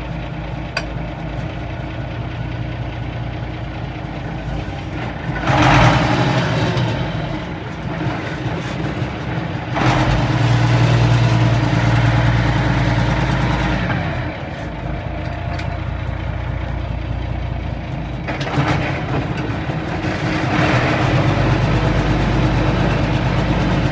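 Ursus 1224's six-cylinder diesel engine running as the tractor is driven, heard from the cab; the engine note rises and falls, getting louder three times as the revs come up.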